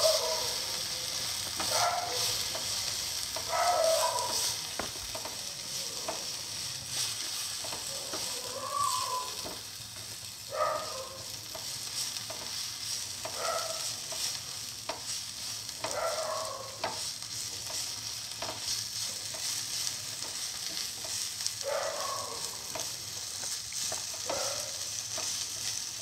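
Onion, garlic, tomato and fenugreek leaves sizzling in hot oil in a pan, with a steady hiss. A spatula stirs and scrapes across the pan's surface in short strokes every couple of seconds.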